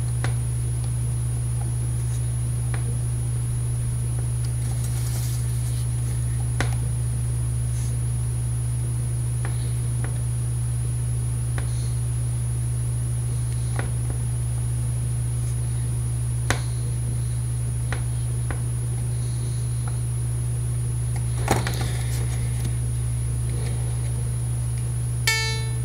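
Steady low hum with a thin high whine over it, and scattered small clicks of metal tools working a harmonica reed plate during reed embossing. Near the end a short harmonica note sounds as a test.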